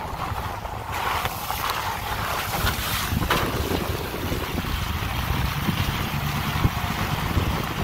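Wind buffeting a phone microphone held out of a moving Chevrolet Silverado's window, over the low rumble of the pickup driving on a wet dirt road. A stronger rush of wind comes about a second in and lasts a couple of seconds.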